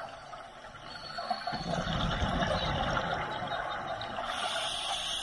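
A scuba diver breathing underwater through a regulator: exhaled bubbles gurgle out for about two seconds, then an inhaled breath hisses through the regulator near the end.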